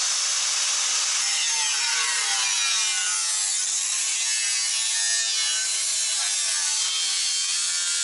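Angle grinder with a cutting disc slicing through a rusty steel motorcycle rear fender: a steady, loud cutting whine whose pitch wavers up and down as the disc bites into the metal.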